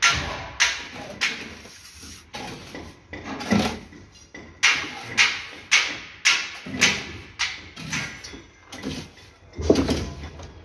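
Steel trowel scraping cement mortar across the top of a brick wall in quick strokes, about two a second with short pauses, each a sharp scrape that fades at once. A duller thud comes near the end.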